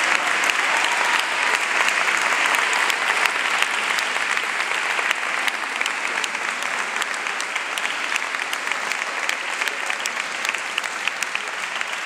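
Audience and performers applauding: a dense patter of clapping that slowly grows quieter and thinner, with single claps standing out near the end.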